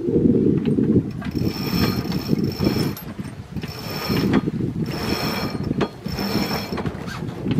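Wind buffeting the microphone on a sailboat under sail. A high squeal from the boat's rigging or deck hardware comes and goes about four times, each time for about a second.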